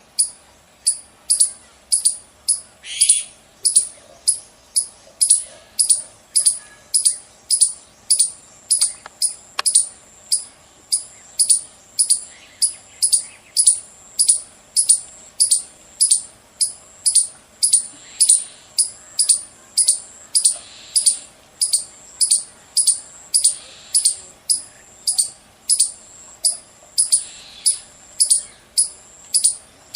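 Squirrel chirping: a loud, sharp, high-pitched chirp repeated at a steady pace, just under two a second.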